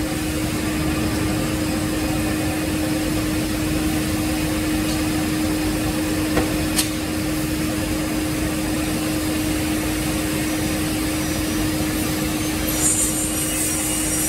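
Holztek CNC panel saw running steadily with a constant hum. A couple of brief clicks come about six and a half seconds in, and a short hiss near the end.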